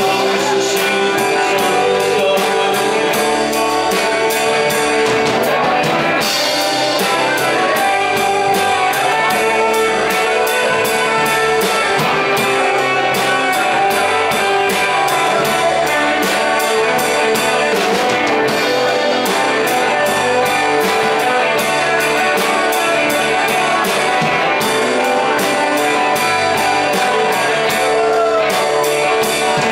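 A small rock band playing live: electric guitars, electric bass and drum kit in a steady, instrumental passage of a mid-tempo song.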